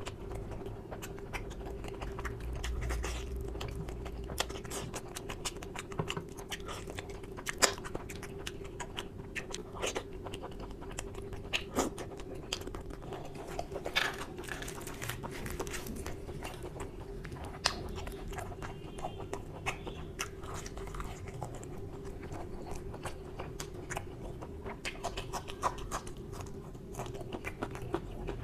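Close-miked eating of mutton curry and luchi by hand: wet chewing, lip smacks and many small mouth clicks, over a steady low hum.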